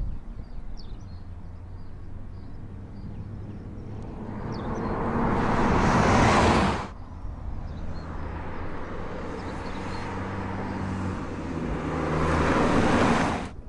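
Camouflaged Mazda prototype car driving past twice, its engine and tyre noise swelling as it nears, each pass cut off suddenly.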